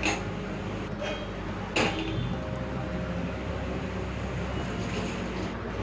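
Pressure cooker lid being fitted onto the cooker: a few sharp metal knocks, the loudest about two seconds in, over a steady low hum.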